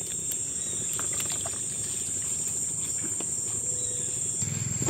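Steady high-pitched drone of an insect chorus, with a few faint clicks and knocks.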